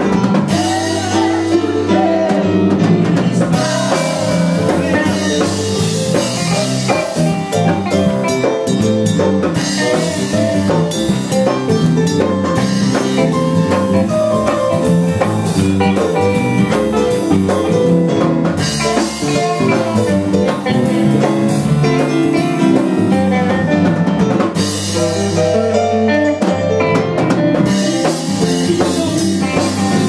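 Live church worship band playing a song: drum kit, electric and acoustic guitars and a Korg Triton keyboard, all running together without a break.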